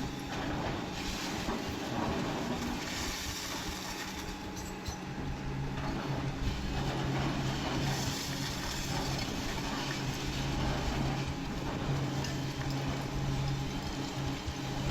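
Heavy machine's diesel engine running steadily, with continuous scraping, knocking and clatter over the top.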